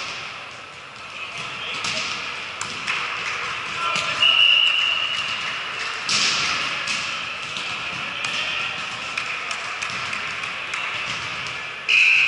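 Indoor volleyball game: players' voices and a few sharp thuds of the ball being hit. A referee's whistle is blown steadily for just over a second about four seconds in, and again right at the end.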